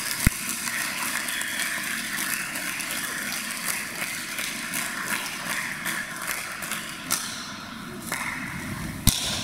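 Audience applauding steadily, with a sharp knock near the end.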